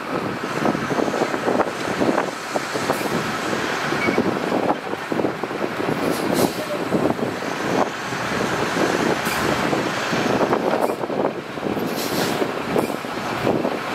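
Heavy earthmoving machinery at work, running steadily with a constant clatter of short knocks and now and then a brief hiss.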